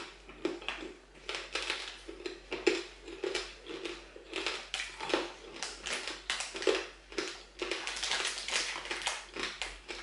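Crunching of triple-cooked pork crackling being chewed: a quick, irregular run of crisp crunches, a few a second.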